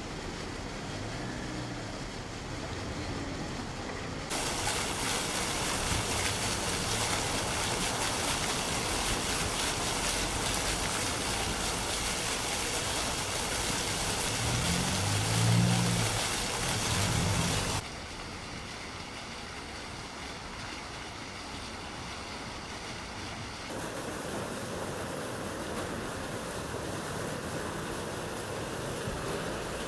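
Fountain jet splashing into its stone basin: a steady hiss of falling water that starts suddenly a few seconds in and cuts off sharply about 13 seconds later, with a short low engine hum near the end of it. Quieter outdoor street ambience lies before and after.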